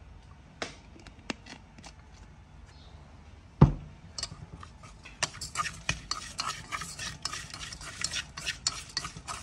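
A utensil clinking and scraping against a bowl while fish is mixed with its seasoning for a marinade. A few scattered taps come first, then one sharp knock about three and a half seconds in. From about five seconds on there is quick, continuous stirring.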